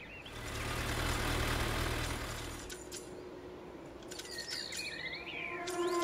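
A box truck driving past: a low engine rumble and road noise swell and fade over the first two and a half seconds. Birds chirp for a couple of seconds after it, and music begins at the very end.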